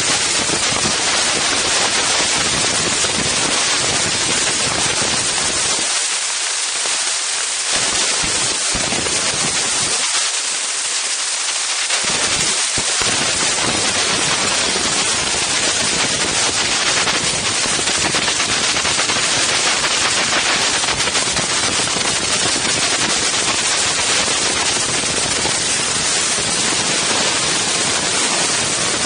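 Strong wind buffeting an Insta360 One X camera's microphones: a loud, crackling rush of noise. The deep rumble drops away briefly twice, around six and ten seconds in.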